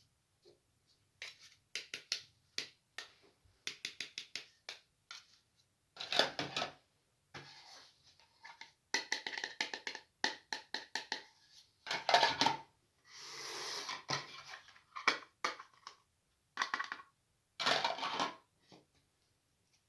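Small plastic toy-kitchen pieces being handled: a run of clicks and taps, broken by short scrapes and rustles.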